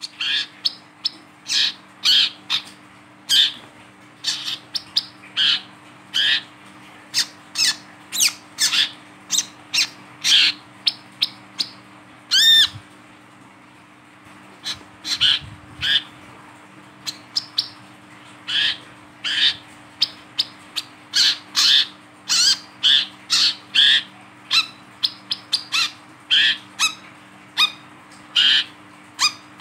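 Male brown-throated sunbird calling while held in the hand: a long run of short, sharp chirps, two or three a second, with a brief pause about halfway through.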